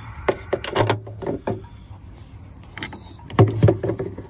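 Scattered clicks, knocks and rubbing from handling a removed plastic headlight assembly, with a louder cluster of knocks about three and a half seconds in.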